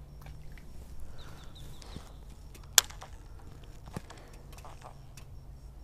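Baitcasting rod and reel being handled in a small boat while flipping: one sharp, loud click a little before the middle, with a few quieter knocks around it. Short bird chirps come about a second in, over a low steady rumble.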